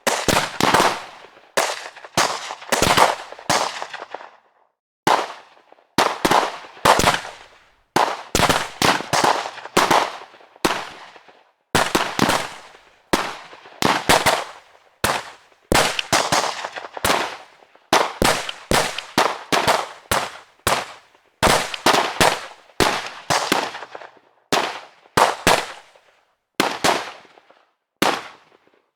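Gunshots fired in quick groups of two to five, each a sharp crack with a short echoing tail, the groups separated by brief silences.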